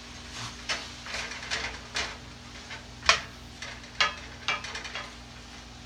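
A wooden spoon stirring kale and vegetables in a stainless steel pan: a run of short, irregular scrapes and knocks against the pan, the loudest about three and four seconds in.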